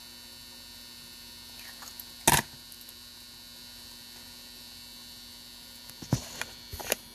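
Steady electrical hum. One sharp knock about two seconds in, and a few clicks and knocks near the end.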